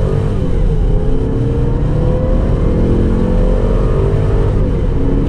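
2006 Range Rover L322's 4.2-litre supercharged V8 under hard acceleration, its engine and exhaust note climbing steadily toward about 6,000 rpm. About four and a half seconds in, the pitch drops briefly as the automatic gearbox shifts up, then starts climbing again.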